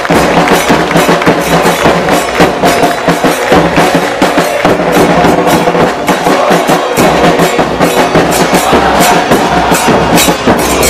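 Loud drum-driven music with a fast, steady beat of sharp percussive hits over sustained tones.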